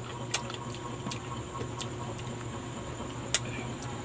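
Close-up eating sounds of a person chewing slices of mango: wet mouth and lip smacks, with a few sharp clicks, the loudest a little after three seconds in.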